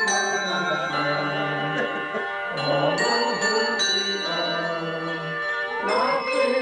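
Bells rung in a tune: irregular strikes every half-second to a second, each ringing on and overlapping the next, with clusters of strikes about a second in, around three seconds in and near the end.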